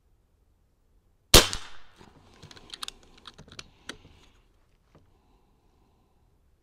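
Niksan Tacto-S .22 PCP air rifle firing one shot, a sharp report that rings off briefly, followed by a quick series of clicks and clacks as the cocking handle is worked to chamber the next pellet from the magazine.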